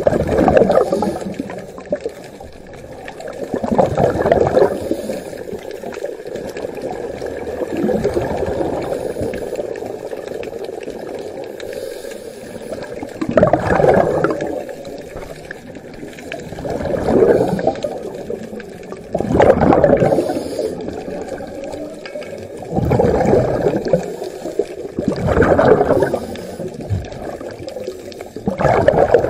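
Scuba regulator breathing heard underwater: bursts of exhaled bubbles rushing and gurgling out of the regulator exhaust roughly every three to four seconds, about nine in all.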